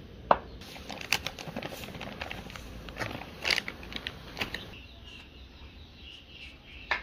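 Wooden spoon stirring boiling curry in a pan, clicking and scraping against the pan several times over the first five seconds, then quieter near the end.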